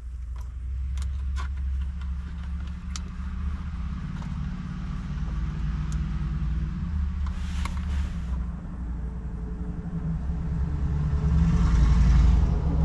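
A motor vehicle engine running with a steady low rumble that grows louder near the end. A few light clicks come in the first few seconds.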